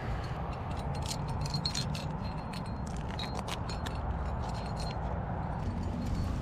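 Metal trad-climbing gear on a harness rack, carabiners and protection pieces, clinking and jangling in scattered irregular clicks as the climber moves.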